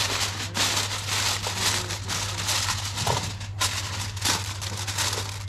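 Aluminium foil crinkling and crackling as it is pressed and crimped down over the rim of a pan.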